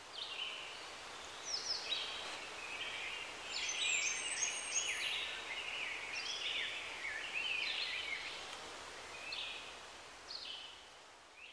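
Songbirds chirping and singing, many short overlapping calls and quick falling notes over a soft steady outdoor hiss, fading out near the end.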